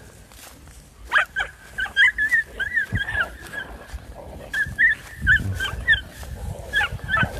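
A dog whining and yipping in many short, wavering high calls, with a low rumble about five seconds in and again near the end.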